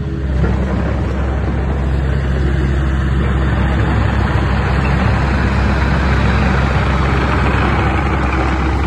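Doosan DX85R excavator's diesel engine running steadily as the machine travels and slews close by.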